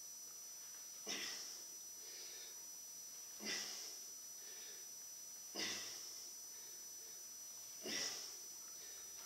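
A man breathing out hard four times, about every two and a quarter seconds, each breath a short sharp burst in time with his swings of a pair of heavy wooden meel clubs.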